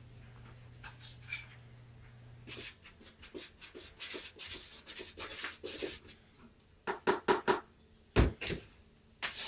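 A spoon stirring flour, baking soda and salt in a large mixing bowl. It gives soft, scattered scraping for several seconds, then a quick run of sharp knocks and a low thump in the last few seconds.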